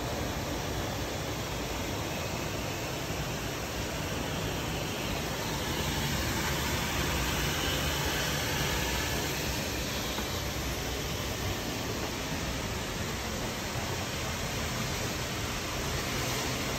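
Steady rushing of water running at a frozen waterfall, growing slightly louder partway through.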